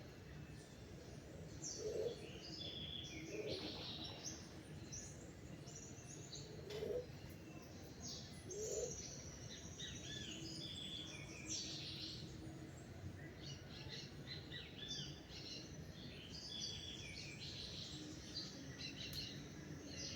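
Several songbirds chirping and singing in overlapping short phrases, with a few brief lower notes now and then over a steady outdoor background noise.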